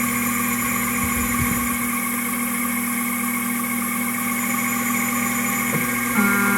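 Spectralight 0200 CNC mill running a program, a steady machine hum and whine as the spindle turns and the table steps back and forth. Near the end a second, different whine joins in briefly, as a drive moves the table.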